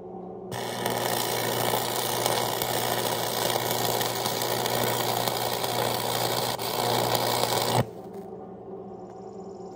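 Stick arc welding a steel gusset onto steel plate: the arc strikes about half a second in, crackles and hisses steadily for about seven seconds, then cuts off suddenly. A low steady hum runs underneath, before and after the arc.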